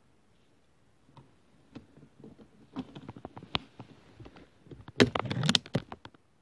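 Dry leaves and twigs rustling and snapping, with scattered small clicks and knocks, as the blind's branches are brushed and handled. The sound picks up about a second in and is loudest in a dense burst of cracks and rustles about five seconds in.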